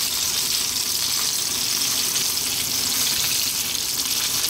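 Flour-coated dory fish pieces deep-frying in hot oil in a pan, a steady high sizzle; the fish is crispy and done.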